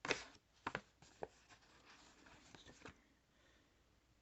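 An automatic knife's blade making a few short, quiet scratching strokes as it cuts into test material, most of them in the first three seconds.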